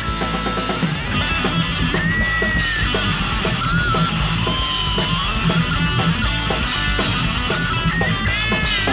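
Instrumental break of a rock song: a lead guitar plays notes that bend up and back down, over a steady drum beat and bass.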